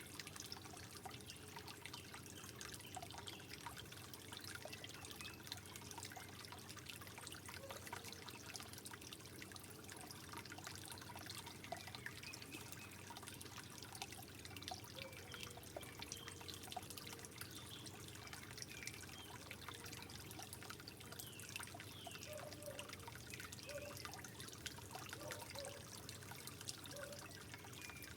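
Soft, steady trickle of water with many small drips and bubbling plops.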